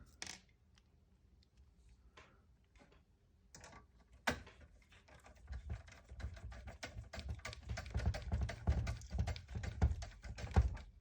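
Screws being driven back into a PlayStation 3's casing with a screwdriver: rapid small clicks and ticks with low thuds of handling, after a single sharp click about four seconds in.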